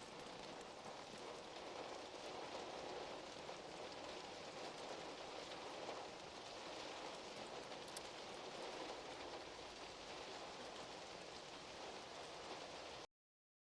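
Steady rain falling, an even hiss of drops with no single strokes standing out; it cuts off abruptly about a second before the end, leaving silence.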